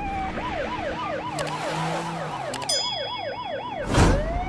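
Police siren in rapid yelp, a wail rising and falling about three times a second. A second, higher siren joins a little past halfway. Near the end a vehicle rushes past with a loud whoosh and the siren winds up again on a rising tone.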